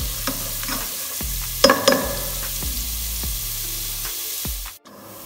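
Ginger-garlic paste sizzling gently in hot cooking oil in a non-stick pot, with a spoon stirring and knocking against the pot, loudest about one and a half to two seconds in. The sound cuts out briefly near the end.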